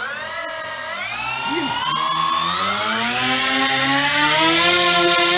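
The electric motors and propellers of a four-motor foam C-130 Hercules model spinning up on a bench motor test: a whine made of several slightly different pitches, rising over the first few seconds and then holding steady, with a thin high whistle above it.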